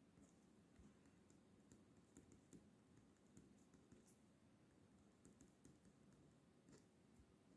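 Faint pen writing on a sheet of lined paper: scattered light ticks and scratches as the pen tip strokes out figures.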